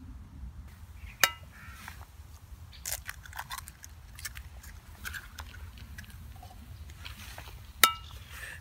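Eggs rapped on the rim of a frying pan twice, about six and a half seconds apart, each a sharp metallic tap with a short ring. Soft crackling of eggshells being pulled apart follows each tap.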